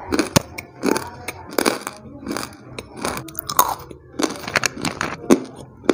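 Close-up crunching of a hard white chunk being bitten and chewed. There are about a dozen sharp crunches, roughly two a second.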